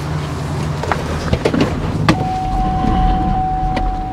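Pickup truck engine idling while an electric winch lowers the vintage Holmes wrecker boom. There are a few metal clanks, and from about two seconds in a steady whine from the winch motor.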